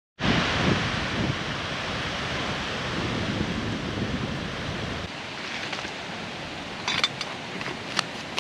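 Wind blowing through the trees, a steady rushing hiss that starts abruptly and eases a little about five seconds in. A few sharp clicks come near the end.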